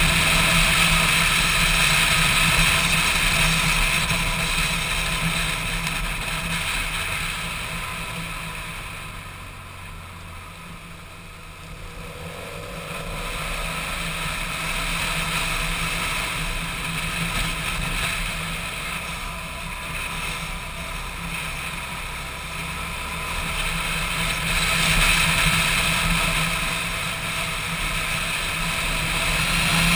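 Motorcycle engine running at road speed, with wind rushing over the action-camera microphone. The sound eases off about a third of the way in and then builds back up toward the end.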